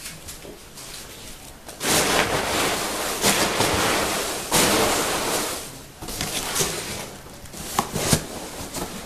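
Foam packing peanuts rustling loudly as a hand digs through a cardboard shipping box full of them, starting about two seconds in and lasting about four seconds, then quieter rustling with a few light knocks.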